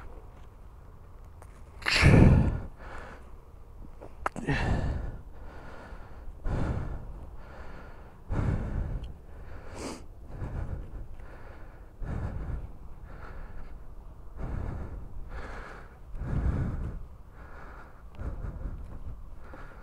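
A person breathing hard, close to the microphone, with a heavy breath every second or two, the loudest about two seconds in. It is the effort of lifting a fallen dirt bike off the grass. Two sharp clicks come through, one about four seconds in and one about ten seconds in.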